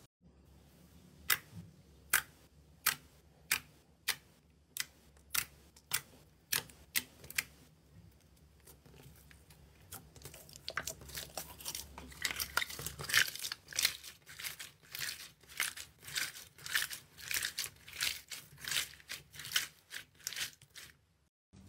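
Slime being handled, popping and crackling: sharp separate pops about once or twice a second at first, then from about ten seconds in a denser run of crackly pops as clear slime is stretched and squeezed between the hands.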